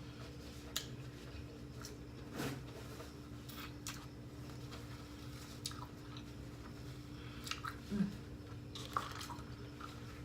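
Close-miked eating: soft chewing with wet mouth clicks and smacks every second or so, over a steady low hum.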